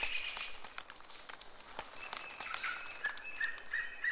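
Tropical forest ambience: faint scattered clicks and rustles, a few short high whistled notes, then from about three seconds in a short high chirp repeated about three times a second.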